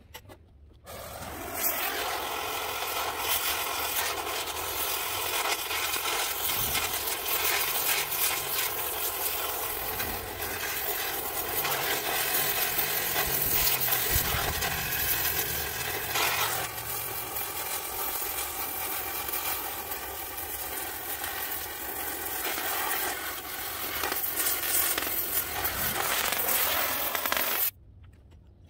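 A power tool runs steadily for about 26 seconds, a motor whine over a dense hiss, starting about a second and a half in and cutting off abruptly near the end.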